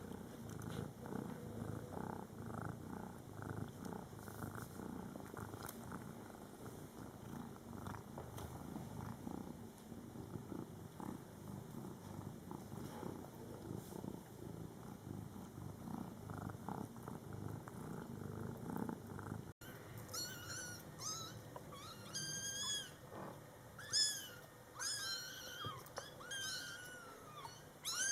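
A cat purring steadily for most of the time, then, after a brief cut, young Scottish Fold kittens meowing repeatedly in high, thin, rising-and-falling calls.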